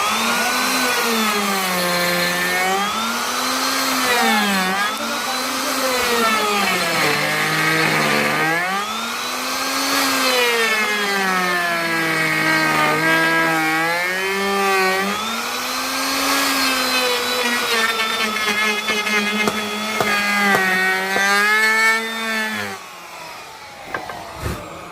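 Woodworking drilling machine boring a hole in wood. Its motor hum sags and recovers in pitch again and again as it runs under load, then stops near the end.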